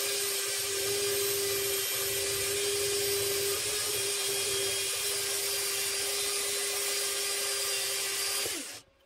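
Parkside portable metal band saw running steadily with a constant whine while its blade cuts through a rusty steel box-section beam. Near the end the motor is switched off, its pitch falls as it spins down, and it stops.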